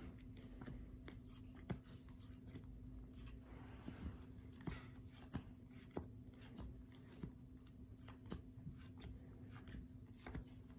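Playing cards being dealt one by one onto a fabric couch cushion: faint, irregular soft taps and flicks, over a steady low hum.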